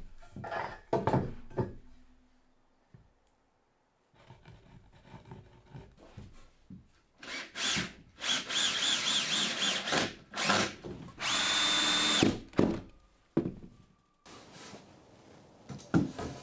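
Cordless drill driving screws into 4x2 timber, in several runs of a second or two each, the last with a steady whine; a few short knocks of wood being handled before it.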